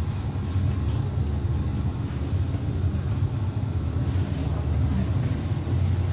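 Steady, loud, low rumbling drone like heavy machinery, the amplified sound of a sound art performance.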